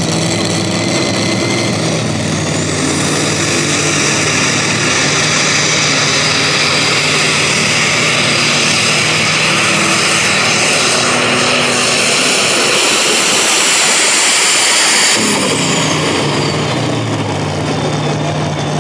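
Turbocharged Super Stock pulling tractor at full throttle, dragging the weight sled with a loud, steady engine note and a high turbo whine. About fifteen seconds in it lets off, and the whine winds down as the engine falls back toward idle.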